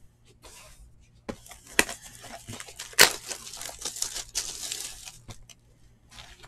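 Plastic shrink wrap being torn and crinkled off a cardboard box of trading cards: a run of irregular crackling rips with two sharp snaps, the louder about three seconds in.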